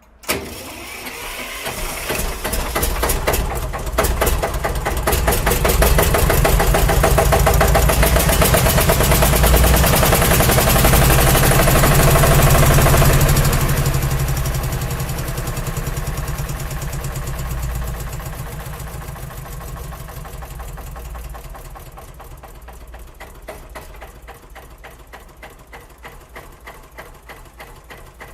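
Tractor engine starting with a sudden catch, running up louder for several seconds, then easing back to a lower, steady run where the separate firing beats can be heard.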